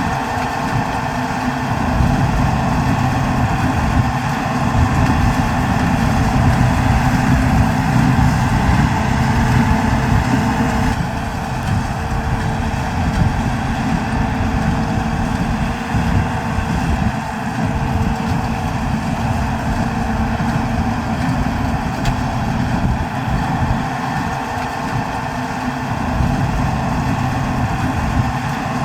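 New Holland TD110D tractor's diesel engine running steadily under load, its tone shifting slightly about eleven seconds in.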